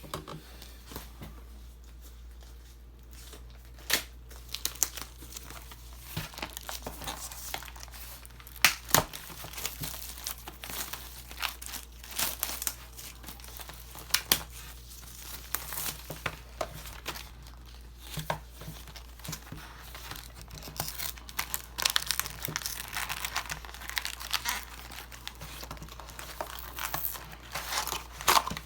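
Plastic wrapping crinkling and tearing, with irregular crackles and rustles, as a sealed hobby box of hockey cards is unwrapped and its foil packs handled.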